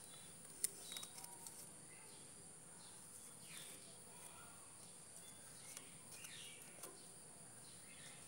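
Quiet handling of nylon twine and a plastic netting needle while tying the meshes of a cast net: faint rustles and a few small clicks, the sharpest a little over half a second in, over a steady high-pitched whine in the background.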